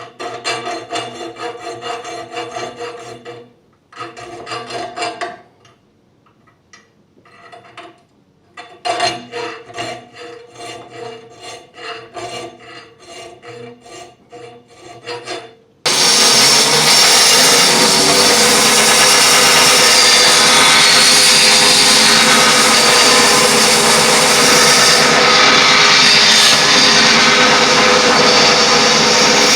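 Hand-filing strokes on a steel sword blade, coming in stop-start runs, with the blade ringing under the file. About halfway through, a power grinder starts suddenly and runs steadily and loudly.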